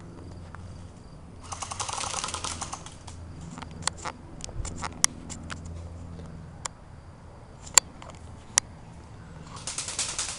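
Airsoft guns firing: a short burst of rapid automatic fire about one and a half seconds in, a few scattered single sharp shots or BB hits in the middle, and another longer rapid burst near the end.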